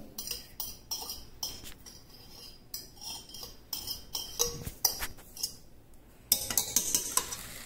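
Spoon scraping and clinking against a ceramic bowl and a stainless steel mixing bowl as sliced bananas are scooped in: irregular clinks and taps, busier and louder from about six seconds in.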